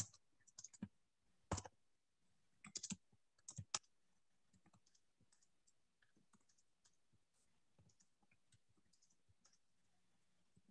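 Faint clicking from computer use, heard over a video call: a handful of sharp clicks in the first four seconds, some in quick pairs, then only light scattered ticks.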